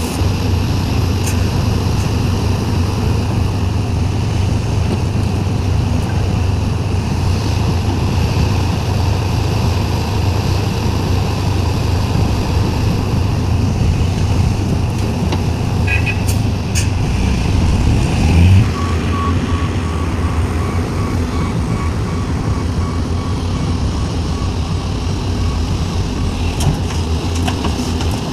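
Heavy diesel engines of a Sumitomo SH350 excavator and a Hino dump truck running steadily, working while the truck is loaded with soil; the engine note swells briefly about two-thirds of the way through. Just after that, a backup alarm beeps steadily for several seconds.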